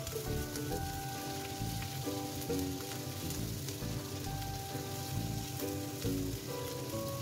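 Salmon fillets sizzling as they fry in oil in a pan, under background music with held melody notes.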